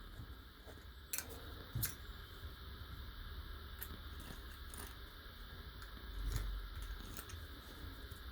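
Faint clicks and light scraping of a hand tool working old paint off a metal hinge, with a couple of sharper ticks about one and two seconds in and a soft low thump around six seconds.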